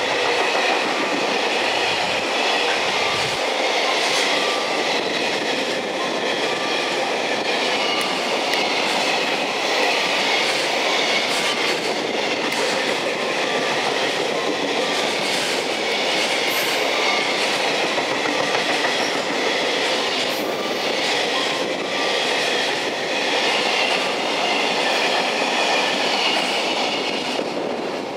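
Freight train's container flatcars rolling steadily past at speed, wheels clacking over rail joints. The sound eases slightly near the end as the last wagon goes by.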